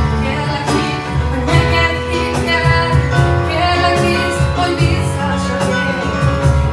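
A woman singing a slow song, accompanied by an electronic keyboard.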